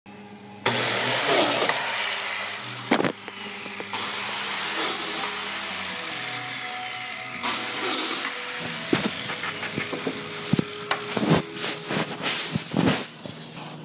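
Power saw running through wood, its pitch sliding up and down, followed by a quick run of sharp knocks and taps over the last few seconds.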